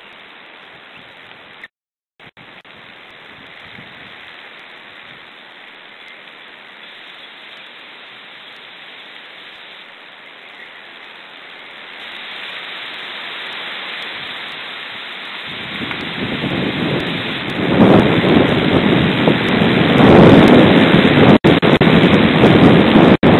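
Wind blowing across an outdoor nest-camera microphone: a steady hiss that grows louder around the middle, then heavy gusting rumble from about two-thirds of the way in, loud enough to overload the microphone. The sound cuts out briefly near the start.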